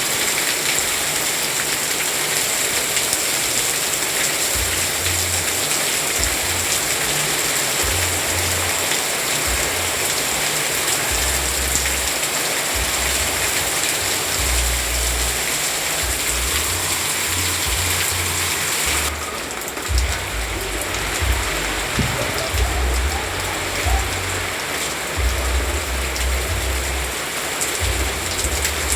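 Steady rain falling, an even hiss with low rumbles coming and going. About two-thirds of the way in, the rain turns duller and louder single drops start knocking about once a second.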